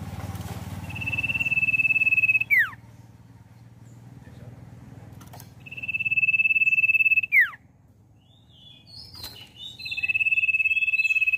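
An untrained common iora whistling three long, steady notes about four seconds apart. Each note is held for over a second and ends in a quick downward slur, with a few short chirps before the last one.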